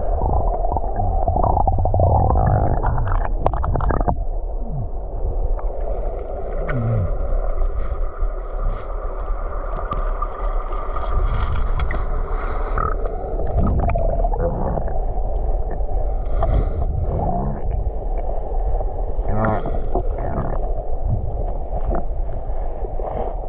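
Rushing river water heard underwater: a muffled, steady rush with a low rumble and a few short falling gurgles.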